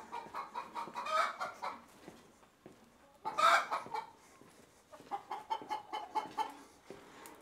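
Chickens clucking in quick runs of short calls, with one louder call about three and a half seconds in.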